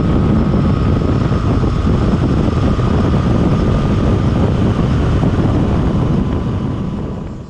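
Yamaha Tracer 900 motorcycle at highway speed, about 90 km/h: steady wind rush over the camera microphone mixed with engine and road noise. It fades out near the end.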